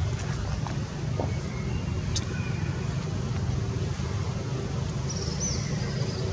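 Steady low rumble of outdoor background noise, with a faint click about two seconds in and a few brief high chirps near the end.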